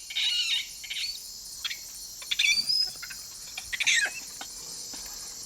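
Tropical forest ambience: a steady high-pitched insect drone with scattered bird calls, including a whistled note about two and a half seconds in and a call sweeping downward about four seconds in.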